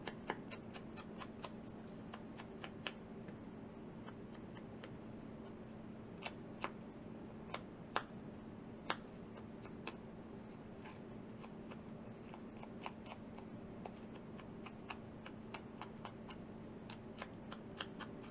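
Small irregular clicks and ticks of a paper cut-out being handled and a wooden-handled ink blending tool being dabbed and rubbed along its edges, over a steady low hum.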